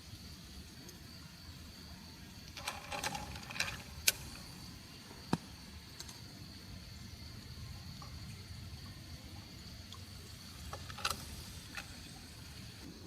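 Steady low rush of a river, broken by scattered clicks and clatters: a cluster about three to four seconds in, a single sharp click a little after five seconds, and another cluster near the end.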